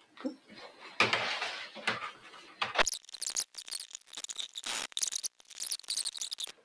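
Chisel paring waste out of a housing (dado) in a softwood board by hand pressure: a scratchy scrape about a second in, then a quick run of short crackling, scraping strokes as the edge shaves the wood.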